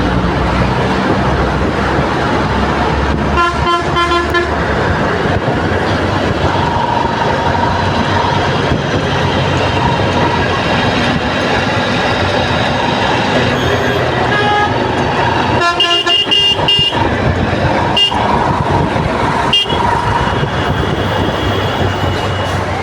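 Congested road traffic: a steady din of engines, with vehicle horns honking. One honk lasts about a second a few seconds in, another runs past the middle, and two short toots follow soon after.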